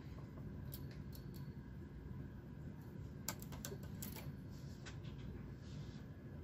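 Small metal clicks of a hand transfer tool and latch needles on a Brother knitting machine's needle bed as stitches are moved by hand. The clicks come in short clusters, about a second in and again around the middle, over a faint low hum.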